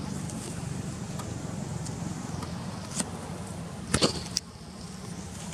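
Steady low engine drone, with a few sharp clicks or taps, the loudest about four seconds in, after which the drone eases.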